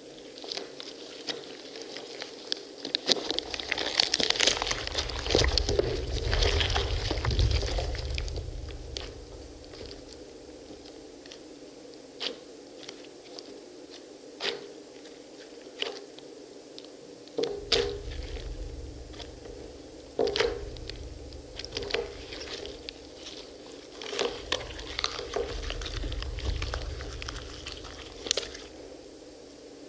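Hands squeezing and kneading crushed pomegranates: wet squishing and crunching of arils and rind, with many small crackles and pops. It swells louder three times with a low rumble, over a faint steady hum.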